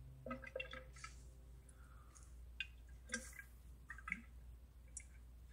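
Faint scattered clicks and light taps over a low steady hum.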